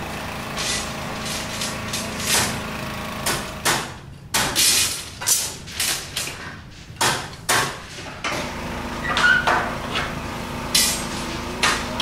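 Small petrol engine on a water-well drilling rig running at a steady speed, with knocks and scrapes of work around it. For a few seconds in the middle the engine gives way to a shovel scraping and digging into broken brick rubble, a strike about every half second.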